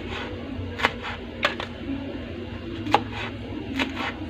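Chef's knife chopping celery stalks on a plastic cutting board: about five sharp knocks at uneven intervals, the blade striking through onto the board.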